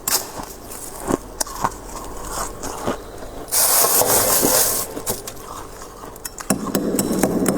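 Freezer frost being scraped: rapid rasping and clicking, with a louder scraping stretch about halfway through and steady scraping again near the end.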